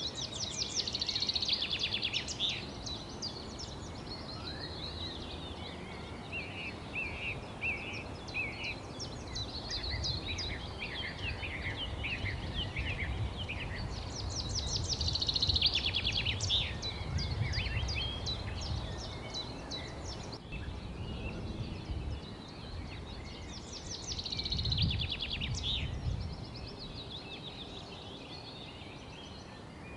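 Several wild birds singing and chirping, with a fast trilling phrase that comes three times: near the start, in the middle and near the end. A low background rumble runs underneath, swelling in the middle.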